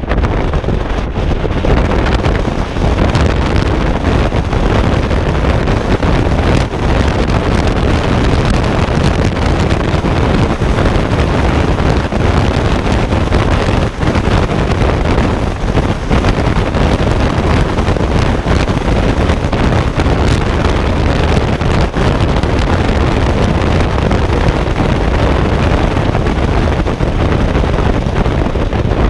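Steady wind rushing and buffeting on the microphone of a camera mounted on the outside of a car moving at road speed, mixed with tyre and road noise.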